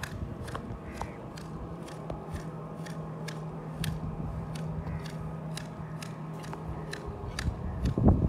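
Long-handled hedge shears snipping a leafy shrub in a steady rhythm, the blades clicking shut about two or three times a second. A louder snap comes near the end, and a low steady hum runs underneath for a few seconds in the middle.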